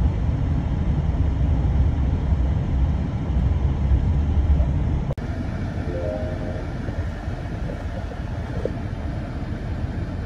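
Low, steady drone of the truck's 6.6 L Duramax V8 turbodiesel heard from inside the cab, louder for the first five seconds. After a cut about five seconds in, it idles at a standstill, quieter and steadier.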